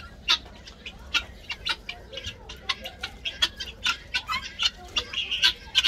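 Helmeted guineafowl calling: a string of short, harsh notes, several a second.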